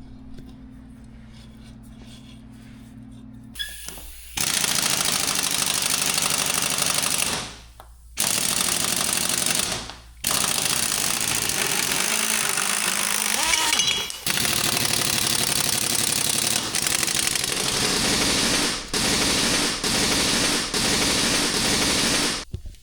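Impact wrench hammering at a wheel's lug nut in long bursts with short pauses between them, after a low steady hum in the first few seconds.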